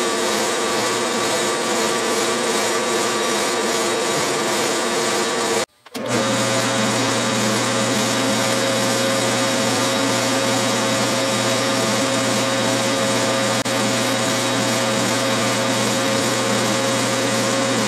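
Clausing metal lathe running steadily while a boring bar, fed by hand on the compound rest, cuts a 3-degree internal taper in a metal hub. The sound drops out briefly about six seconds in, then resumes steady with a different, lower hum.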